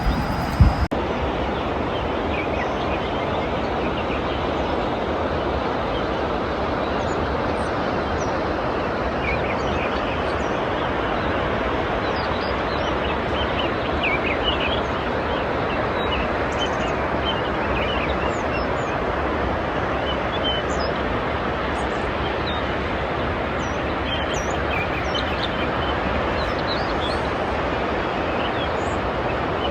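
Small birds chirping now and then over a steady rushing background noise.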